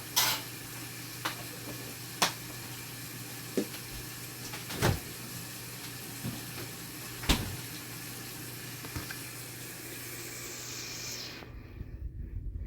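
Kitchen work sounds: a steady hiss over a low hum, with occasional sharp knocks and clinks of pots, dishes or utensils about every second or two. The hiss cuts off suddenly near the end.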